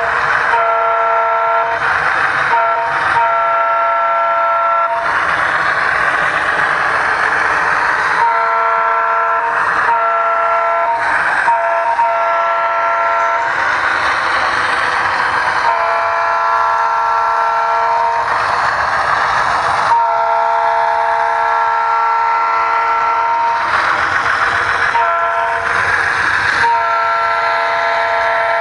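Diesel locomotive multi-chime air horn blowing in repeated blasts, including a long-long-short-long grade-crossing pattern about eight seconds in and a long blast around the middle. A steady rushing locomotive running noise continues between the blasts.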